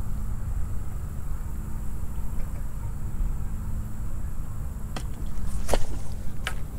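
Steady low rumble of wind on the microphone of a body-worn camera. In the last two seconds come three sharp clicks as the fishing rod and reel are handled right by the lens.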